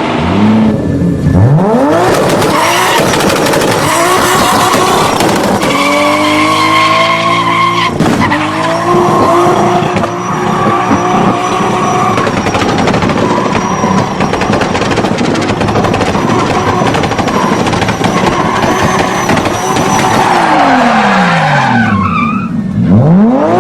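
Turbocharged car engine revving hard at full throttle. The engine pitch sweeps sharply up near the start and again near the end, and holds high and steady in between.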